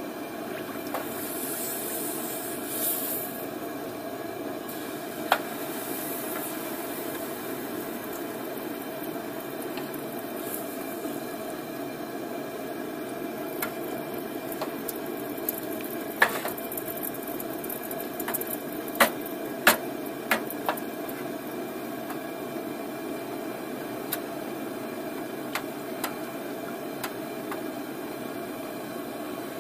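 Red-hot 5160 spring-steel dagger blade quenched in oil: a brief sizzling hiss about two seconds in as it goes into the oil, then the oil bubbling over the steady rush of the gas forge burner. A few sharp knocks stand out, the loudest near the middle.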